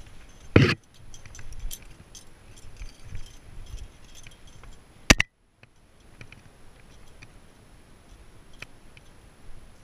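Climbing gear handled at close range: carabiners and quickdraws clinking with scattered small clicks and scrapes. A loud brief knock comes under a second in and a sharp loud click about five seconds in.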